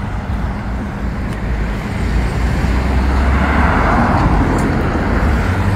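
A car driving past, its noise swelling to a peak about four seconds in and then easing off, over a steady low rumble of street traffic.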